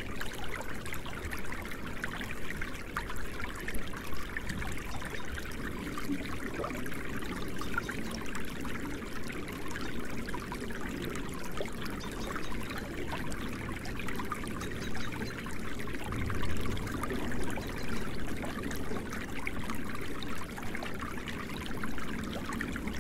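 Running water, a continuous rushing and trickling ambience used as a background sound track.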